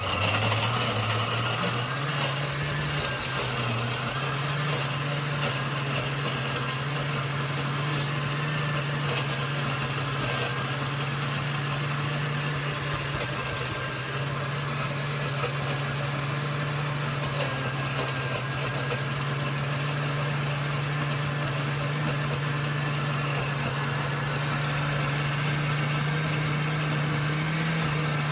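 Oster countertop blender motor running on its low puree setting, blending roasted red peppers into a thick puree. Its hum rises a little in pitch in the first second, then holds at a steady speed.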